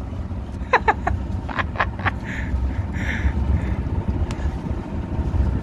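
Fishing boat's engine running with a steady low rumble, with a few short sharp sounds about a second in.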